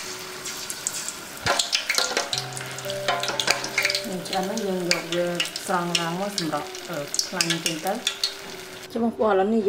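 Batter-coated corn kernels deep-frying in a pot of hot oil, crackling and sizzling with many sharp pops, while a metal ladle stirs them and scoops them out of the oil.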